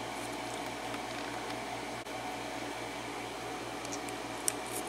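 Steady room background noise: a low pulsing mechanical hum with hiss, like a running fan, and one faint click near the end.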